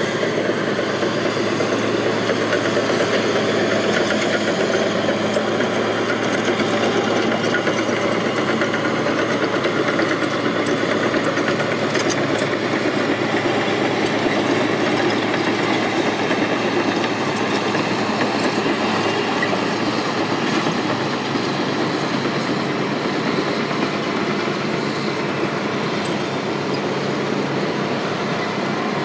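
Crawler dozer's diesel engine working under load, with its steel tracks clanking as it pushes dirt; loud and steady throughout, easing off slightly in the last third.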